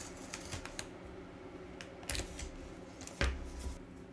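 Box cutter slitting the packing tape on a cardboard mailer box: quiet scraping and clicking, with two louder knocks about two and three seconds in.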